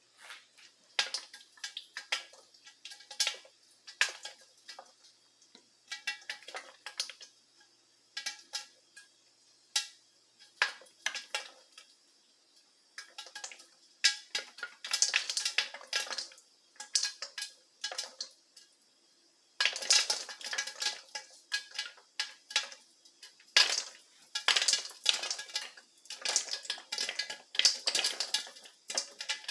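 Popcorn kernels popping in a covered pan on the stove, each pop a sharp click against the metal pan and lid. The pops come singly and spaced apart at first, then turn into rapid runs of many pops about halfway through.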